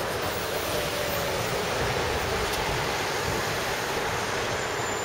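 Steady outdoor street noise: a continuous hiss of passing traffic mixed with wind on the microphone.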